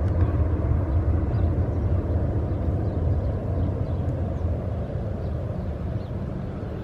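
Boeing 737-800's CFM56-7B turbofan engines at climb-out power as the jet departs: a deep, steady rumble that slowly fades as the aircraft climbs away.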